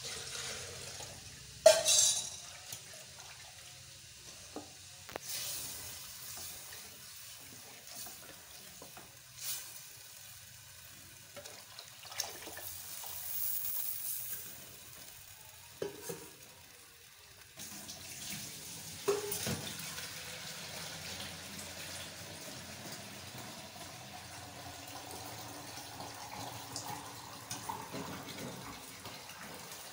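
Wooden spoon stirring thin yogurt-and-gram-flour kadhi batter in an aluminium pot, with a few sharp knocks of the spoon against the pot, the loudest about two seconds in. Partway through, liquid is poured into the pot in a steady stream.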